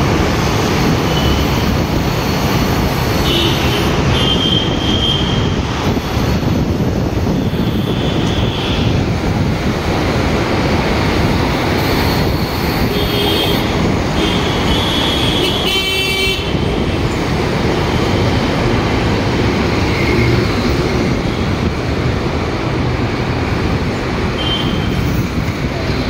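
Steady road noise from riding a two-wheeler through heavy city traffic. Short vehicle horn toots come several times from surrounding traffic, one of them louder about sixteen seconds in.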